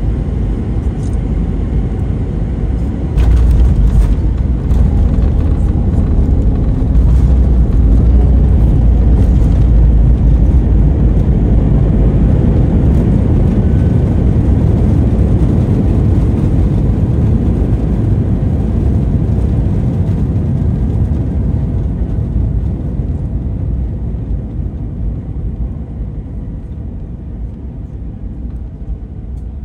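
Airbus A321-200 landing roll heard from the cabin: a loud low rumble of engines and runway that jumps up suddenly about three seconds in as reverse thrust comes on after touchdown. It stays loud for a while, then dies away gradually as the aircraft slows.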